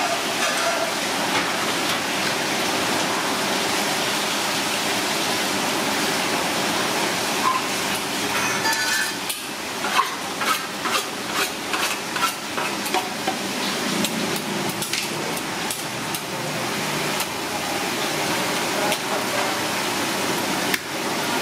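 Food sizzling with a steady hiss. From about nine seconds in, a run of sharp knocks and clinks comes one or two a second, then dies away a few seconds later.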